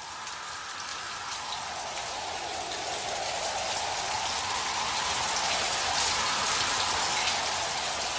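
Steady rainfall, growing gradually louder, with individual drops heard as many small ticks.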